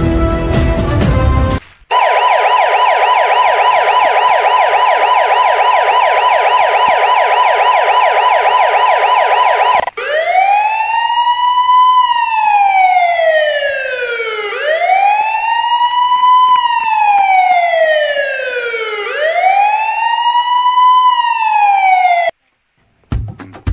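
Electronic police siren: a rapid warble for about eight seconds, then a slow wail that rises and falls three times before cutting off suddenly.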